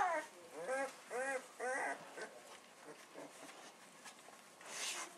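Two-week-old bullmastiff puppies whimpering: the tail end of a high cry trails off at the start, then come three short whines in quick succession, each rising and falling in pitch.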